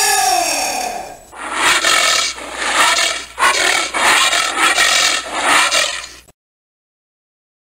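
Giant anteater calling: one drawn-out call whose pitch arches and then falls, followed by a run of raspy, noisy calls in repeated bursts that stops abruptly about six seconds in.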